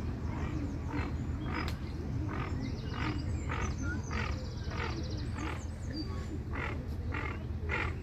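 A duck quacking over and over, about two quacks a second, over a steady low background rumble. A small bird gives a couple of quick high trills midway.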